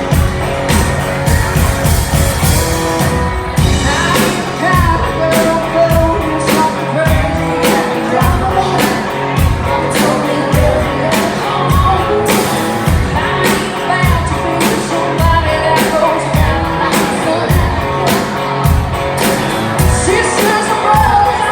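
A band playing a country-rock song with a singer's voice over it, driven by a steady drum beat.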